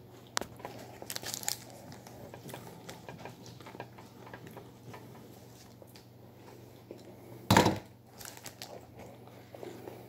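Paper burger wrapper crinkling and rustling as it is handled, with scattered small crackles and clicks. About seven and a half seconds in comes one loud, short crackle or knock close to the microphone.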